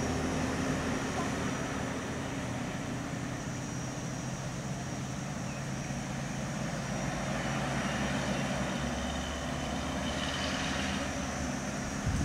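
Vehicle engines idling and running slowly, a steady low hum.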